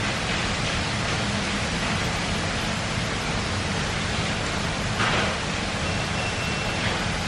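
Steady rushing background noise, with a short scrape of a metal fork against the tray of fries about five seconds in.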